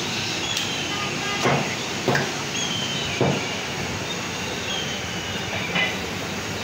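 Butcher's cleaver chopping mutton on a wooden block: four separate sharp chops, about 1.5, 2, 3 and 6 seconds in, over steady background noise.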